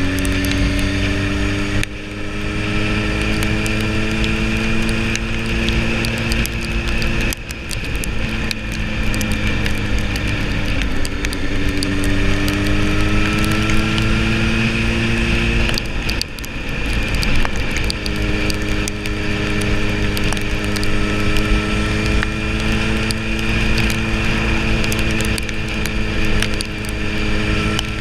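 Sport motorcycle engine pulling steadily on the road, its note climbing slowly and dropping briefly three times as gears change. Wind noise rushes over it throughout.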